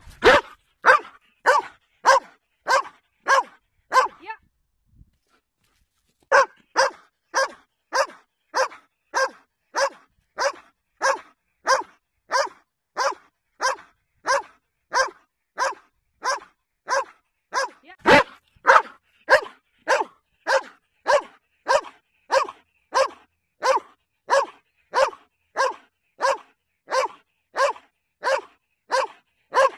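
Young Belgian Malinois barking steadily and rhythmically, about one and a half to two barks a second, demanding the helper's jute bite pillow in protection-sport foundation training. The barking stops for about two seconds a few seconds in and then resumes, with one sharp knock about two-thirds of the way through.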